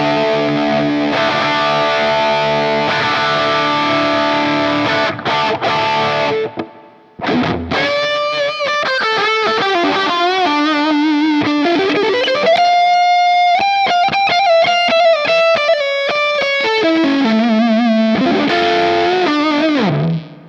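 Distorted electric guitar through a digital emulation of a Mesa/Boogie Mark-series amp's high-gain channel. A chord rings for about seven seconds, then a single-note lead line with vibrato and bends slides up to a long held note and steps back down near the end.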